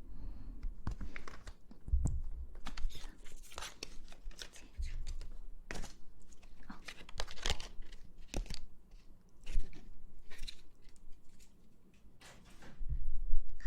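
Close-miked ASMR rustling and crinkling: many short, irregular scratchy crackles, with a few low thumps of handling about two seconds in and near the end.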